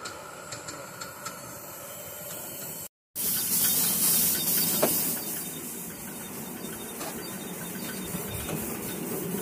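Ride-on miniature live-steam locomotive: light clinks and clicks while it stands, then a loud steam hiss as it runs along the track. This settles into a steady rushing hiss with faint, regular clicks.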